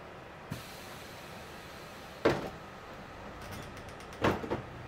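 Steady low rumble of a moving city bus heard from inside the cabin, broken by a small thump, a sharp knock about two seconds in and a quick double clunk near the end.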